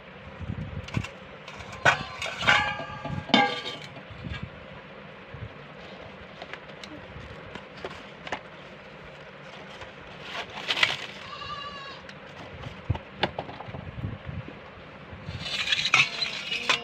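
Short, wavering animal calls, heard about two seconds in, around eleven seconds in and near the end, with scattered clicks and knocks between them.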